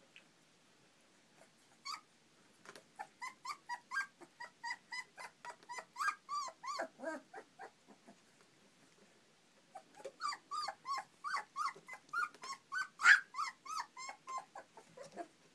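Four-week-old basset hound puppies yipping and squealing as they play: rapid short high-pitched yelps, about three a second, in two long bouts with a pause between, and one louder squeal partway through the second bout.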